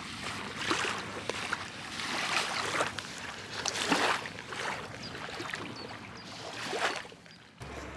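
Small river waves washing onto a sandy beach, the rush of water rising and falling in repeated swells.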